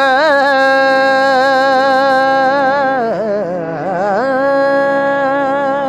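A teenage boy singing a long held note with vibrato in a Punjabi song, breaking into a run of quick ornamented turns about three seconds in, then holding the note again.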